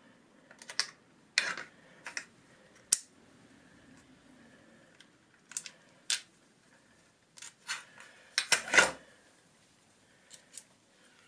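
Sharp clicks and small clatters of steel screwdriver bits and a plastic bit case being handled as a bit is picked out and fitted. The clicks come singly and in pairs, with a tight cluster near the end that is the loudest.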